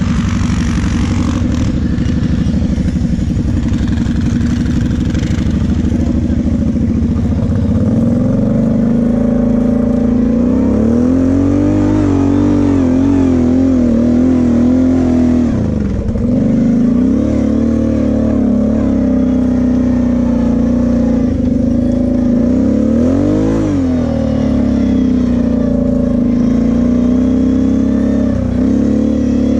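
Sport quad's engine heard from on board while riding offroad, its revs rising and falling with the throttle, climbing hard through a sandy hill climb and dropping away sharply twice in the second half.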